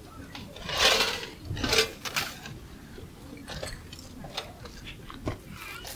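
A short rustling hiss about a second in, then light clicks and knocks of objects being handled.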